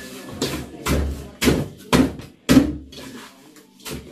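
Plastic squeeze bottles of syrup knocking on a wooden table and tray as they are handled and set down: a string of short, separate knocks about every half second.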